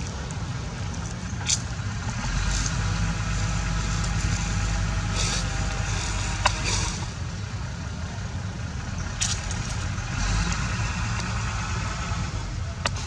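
Motor vehicle engine idling as a steady low rumble, with a few sharp clicks and short hisses over it.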